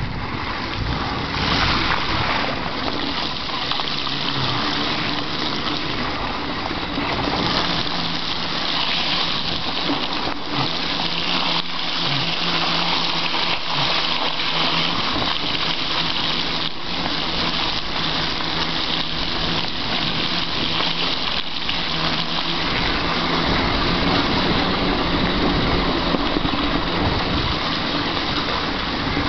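Mountain bike ridden over a wet, muddy trail: a steady wash of tyre spray and splashing through mud and puddles, with a few short knocks.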